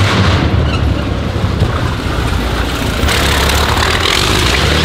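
Brutus's 47-litre BMW VI aircraft V12 running loud and deep under throttle through a burnout, rear tyres spinning in smoke, then driving past. The deep low note swells again about three seconds in.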